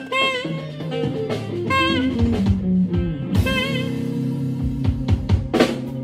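Saxophone playing short melodic phrases with vibrato over a band's bass and drum kit, with snare hits and rimshots coming thicker in the second half.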